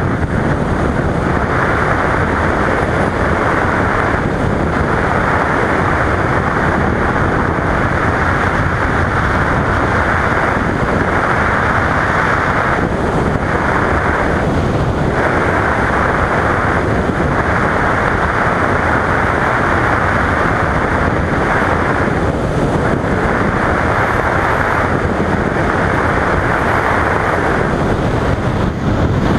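Wind rushing over a helmet-mounted camera's microphone on a 2015 Yamaha FZ-07 motorcycle cruising at highway speed, the engine and road noise buried beneath it. The rush is loud and steady, swelling and easing every second or two as the wind buffets.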